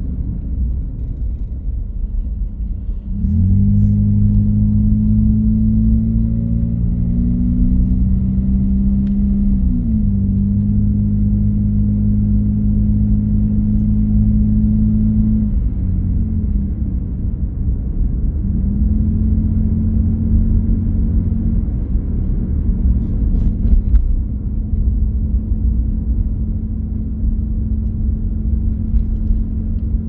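Car engine and road noise heard from inside the cabin while driving: a constant low rumble, joined about three seconds in by a steady engine drone that climbs slightly in pitch and then dips back just before ten seconds in. The drone fades out around sixteen seconds in and returns a couple of seconds later, softer towards the end.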